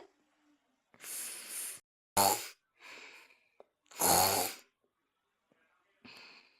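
A person snoring heavily: a long noisy breath, then two short loud snores about two seconds apart with softer breaths between, and a faint breath near the end.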